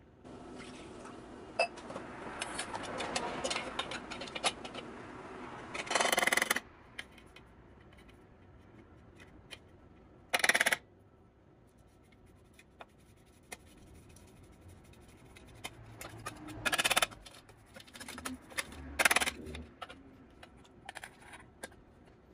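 A spoon stirring and scraping chopped nuts in a stainless steel bowl, with four short, loud scrapes spread through the stretch.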